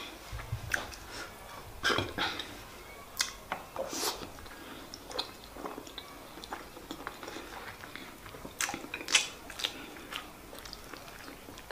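Close-miked chewing and wet mouth smacks of a person eating white rice and chicken stew, heard as irregular short clicks and smacks.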